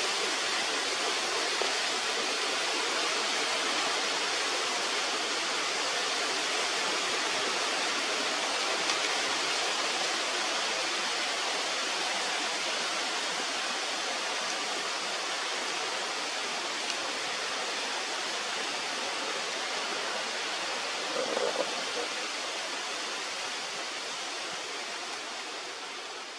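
A steady, even rushing hiss with no pitch or rhythm, fading away at the end.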